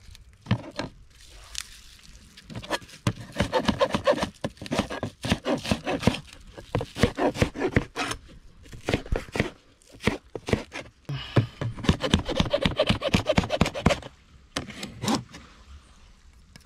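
Knife chopping scallion and green pepper, the blade striking the cutting board in quick strokes. Two long runs of rapid chops of a few seconds each, with a pause between them and a few single strokes around them.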